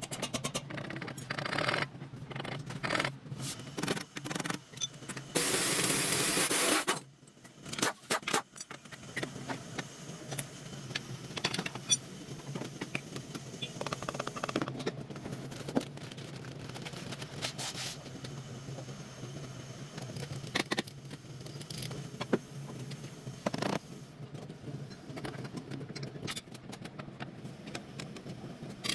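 Metal tools and car parts being handled: repeated clicks, knocks and scraping, with a loud, even rushing noise lasting about a second and a half about five seconds in.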